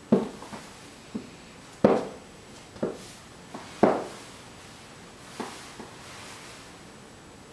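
High-heeled shoes stepping on a hardwood floor: a series of irregular heel knocks, each with a short ring, the loudest about two and four seconds in, stopping after about six seconds.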